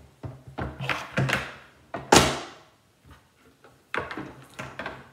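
George Foreman grill being handled on a table: a series of sharp clunks and knocks from its parts being moved and set down, the loudest about two seconds in.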